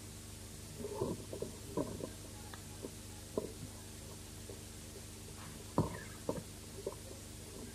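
Steady electrical hum and hiss of a home-made demo recording, with scattered faint knocks and short noises; the sharpest knock comes about six seconds in.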